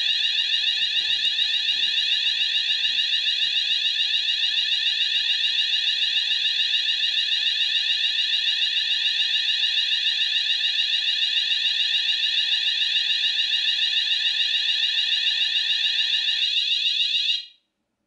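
Fire alarm sounder sounding a continuous, rapidly pulsing high-pitched alarm tone, set off by a detector during a system test; it cuts off abruptly near the end.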